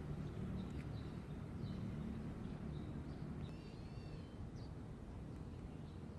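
Budgerigar giving scattered short high chirps and one longer warbled call about three and a half seconds in, over a steady low outdoor rumble.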